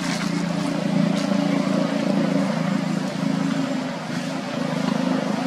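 An engine running steadily, a low even hum with a hiss over it.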